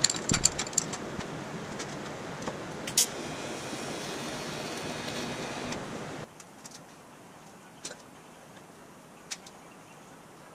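A few sharp metallic clicks, then an arc welder crackling steadily while welding a steel tube in a vise. The welding stops suddenly about six seconds in, leaving quiet shop background with a couple of light clicks.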